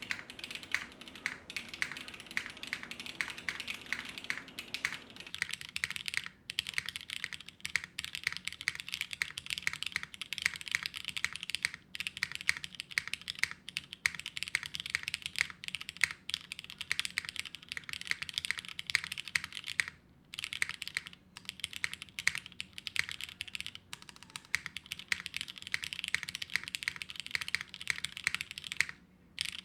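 Continuous fast typing on a TGR Jane v3 custom mechanical keyboard with a carbon-fibre half plate. A dense run of keystroke clacks and spacebar hits, broken by a few brief pauses.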